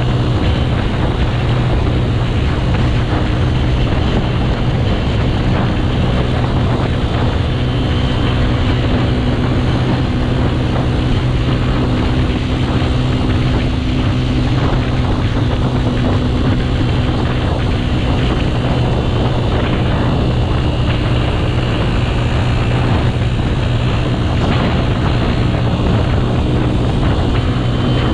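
Motorcycle engine running at a steady cruising speed, its even drone heard from on the bike with wind rushing past the microphone.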